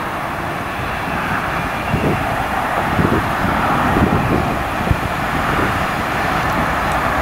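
Approaching passenger train hauled by Class 67 diesel-electric locomotive 67003: a steady low rumble that grows slightly louder, with a few dull thumps in the middle.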